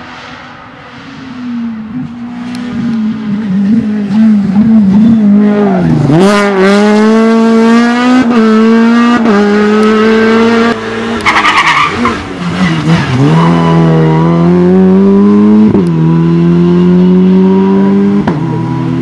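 Rally car engine at full throttle, revs climbing and then dropping sharply at each upshift as the car accelerates through the gears. It starts quieter for the first few seconds and grows loud as the car comes closer, with a brief crackling burst near the middle.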